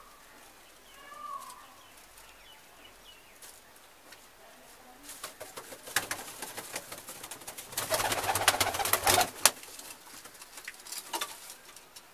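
Domestic pigeons in a loft: a short coo about a second in, then a few seconds of wing flapping and rustling, loudest near two-thirds of the way through.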